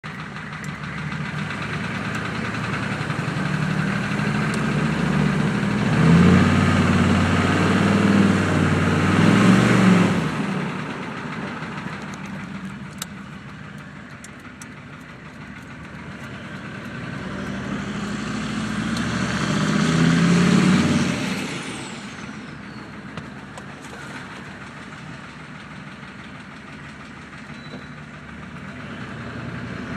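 1994 Chevrolet C3500's mechanically injected 6.5 turbo-diesel V8 through a straight-piped exhaust, revved up and held twice, each time dropping back to idle. A thin falling turbo whistle follows as the revs fall after the second run-up.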